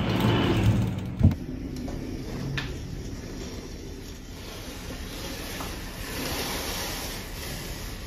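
A sliding door sliding open and stopping with a knock about a second in, followed by steady room noise. Near the end comes a soft swish as a sheer curtain is drawn back along its track.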